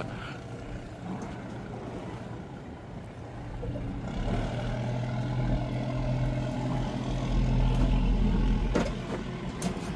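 Fishing boat's engine running with a steady low hum that grows louder about four seconds in and eases off near the end, with a couple of sharp clicks.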